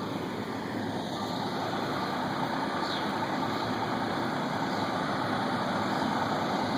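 A motor vehicle's engine running steadily, growing slowly louder.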